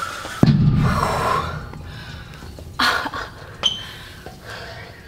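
A heavy dumbbell set down on the gym floor: one dull thump about half a second in, the loudest sound, with a few quieter noises after it.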